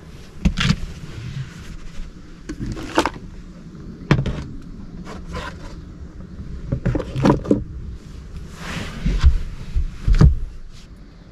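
Handling noise from lifting the hinged cushioned seat of a camper sofa and rummaging in the storage box beneath it: a series of irregular knocks, bumps and scrapes, the loudest near the end.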